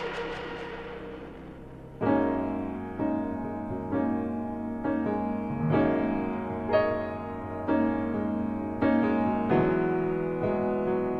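Background piano music: slow chords struck about once a second, each ringing and fading, starting about two seconds in after a fading earlier sound.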